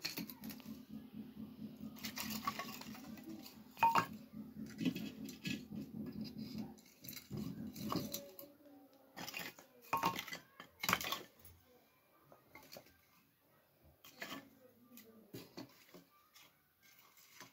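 Split dry firewood sticks knocking and clattering against one another and the clay stove as they are laid into the firebox under a pot. There are a string of sharp separate knocks, the loudest about four seconds in and again around ten to eleven seconds.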